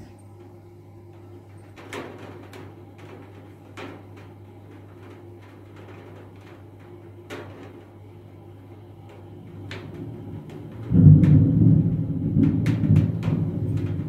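Thunder rumbling, setting in suddenly about eleven seconds in and staying loud. Before it, scattered sharp taps over a steady low hum.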